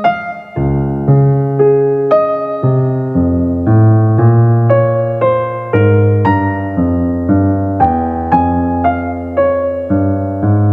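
Background piano music: a melody of single struck notes about twice a second over lower bass notes.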